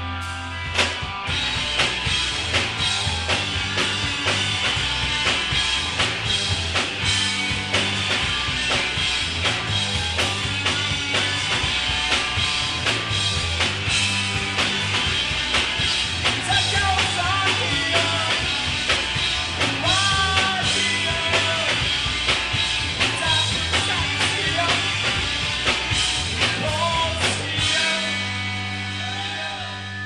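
Rock band playing live, with drum kit and electric guitars, and a voice singing over it in the middle. About two seconds before the end the drums stop and a held chord rings out as the song closes.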